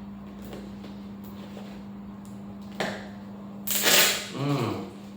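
Gift packaging being handled and opened: a single click, then a short burst of rustling from the wrapping, over a steady low hum.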